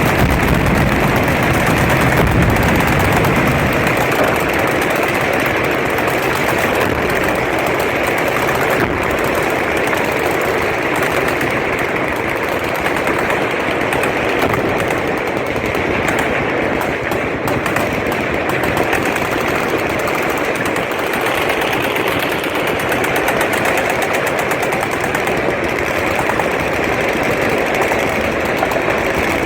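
Sustained automatic gunfire from a machine-gun firing line: a dense, unbroken rattle of overlapping shots at a steady level.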